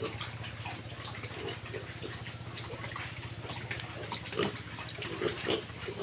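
A group of black piglets feeding from feed spread on a pen floor: wet snuffling and chewing with scattered small clicks, and a few short grunts near the end.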